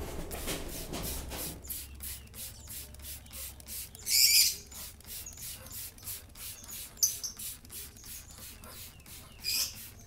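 Hand-pump spray bottle squirting water over a lovebird held in the hand: a loud hissing spray about four seconds in, with shorter sprays around seven seconds and near the end. Between them, rapid faint squeaks and clicks from the lovebird.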